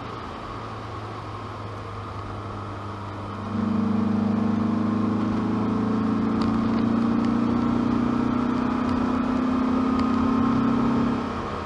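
Opel Kadett C Coupe 2.0E's four-cylinder engine and exhaust heard from inside the cabin while driving. It runs steadily at first, then about three seconds in it comes under hard throttle, getting much louder with its note rising slowly as the car accelerates, and near the end it drops back as the driver lifts off.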